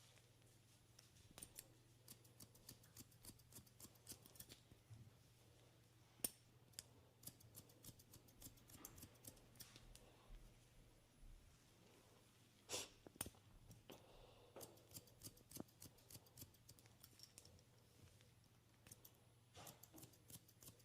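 Hair-cutting scissors snipping through hair: runs of short, sharp snips, with a couple of louder snips about six and thirteen seconds in.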